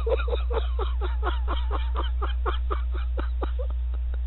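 Steady electrical mains hum with a run of quick, soft clicks, about five a second, that thin out near the end.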